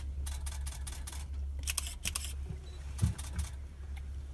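Steady low hum of a shuttle bus's engine heard inside the cabin, with scattered clusters of camera shutter clicks and a low knock about three seconds in.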